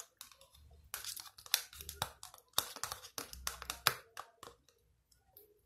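Sticky gel slime being worked in a container, a quick irregular run of wet clicks and crackles that thins out and stops about four and a half seconds in.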